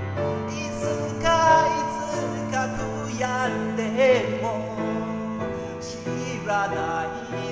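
A man singing a Japanese enka ballad to his own piano accompaniment, holding notes with a wide vibrato.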